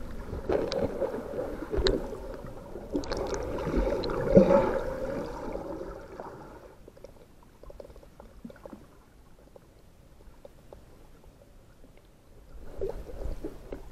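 Water gurgling and sloshing, with bubbly noise and small clicks; it dies down after about six and a half seconds to faint crackling and picks up again near the end.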